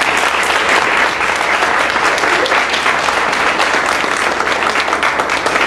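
Audience applauding: many hands clapping at once, a dense, even patter.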